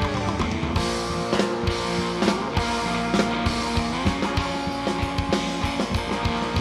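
Live rock band playing an instrumental passage: electric guitar over a steady drum beat, with a few bent, sliding notes.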